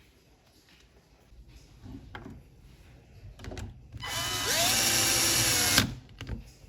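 HiKOKI cordless impact driver, converted to run on an 18V battery, spinning free without load for just under two seconds: its motor whine rises quickly as it spins up, holds steady, then stops. A few light handling clicks come before it.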